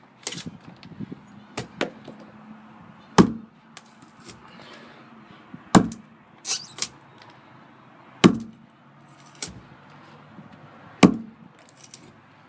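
Schrade SCAXE5 steel hatchet striking into a wooden log, four heavy blows about two and a half seconds apart, with lighter knocks between them. The blows are most likely the rear spike being driven in to test how far it penetrates.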